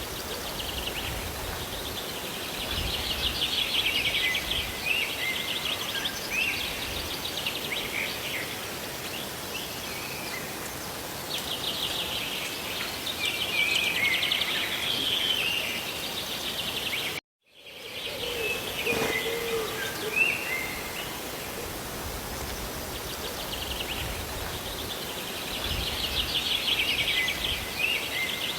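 Steady rush of rain and falling water, with birds singing over it in recurring spells of rapid trills and short chirps. The sound cuts out completely for a moment about two-thirds of the way through.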